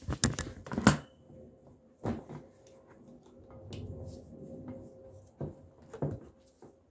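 A few sharp clicks and knocks of plastic being handled in the first second, then scattered softer clicks and a faint rustle as a hand wire stripper is worked on white electrical cable.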